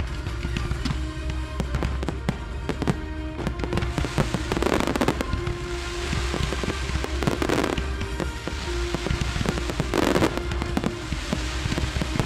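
Fireworks display going off over a music soundtrack: rapid bangs and crackles throughout, with a louder, longer burst of crackle about every two and a half seconds.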